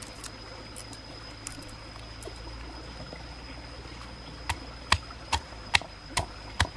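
A pestle pounding chilies and garlic in a stone mortar: about six sharp strikes, two or three a second, beginning about four and a half seconds in. Under it runs the steady trickle of a stream, with a few faint clicks from garlic being peeled before the pounding starts.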